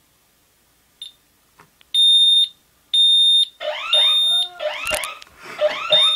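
Home security alarm set off on its fire button, sounding high steady beeps in groups of three about a second apart with a pause between groups: the temporal-three fire signal. From about three and a half seconds, lower wavering sounds rise and fall over the beeps.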